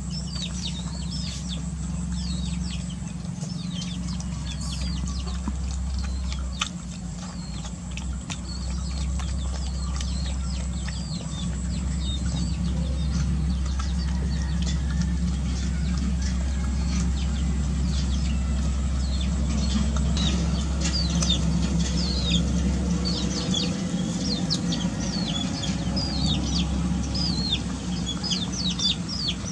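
Small birds chirping busily throughout, over a steady low hum, with scattered wet clicks from two puppies lapping and eating at a plastic bowl.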